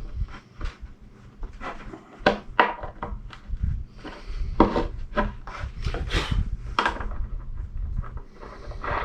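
Irregular wooden knocks and clunks with short stretches of rubbing and scraping, as pieces of wood are handled and set down.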